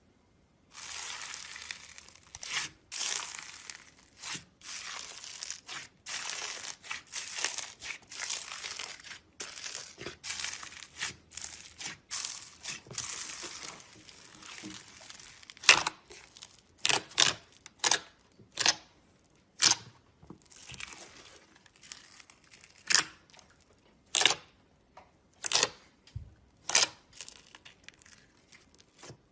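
Slime being squeezed and stretched by hand. For about the first half it makes a continuous crackling texture, then a series of separate sharp pops comes roughly once a second.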